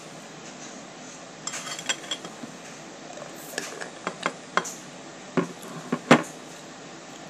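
A metal spoon clinks against a small glass jar. Then come sharper clicks and knocks as the jar's plastic lid is twisted on and the jar is set down on the table, the loudest knock about six seconds in.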